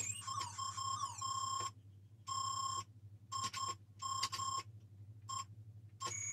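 Acorn Electron game sound effects from its single-channel beeper: runs of short, steady, fairly high beeps switching on and off, with a couple of quick falling pitch slides in the first second or two and short silences between the runs.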